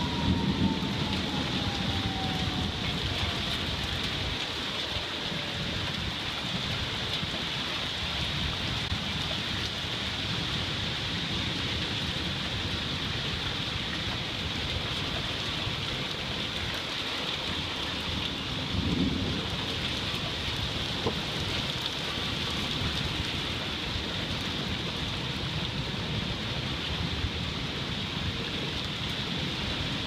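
Steady rain falling on the yard, trees and roof edge, with two brief low rumbles of thunder, one right at the start and one about two-thirds of the way through.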